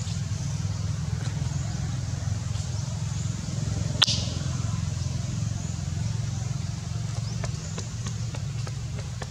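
Steady low outdoor rumble with a single sharp click about four seconds in.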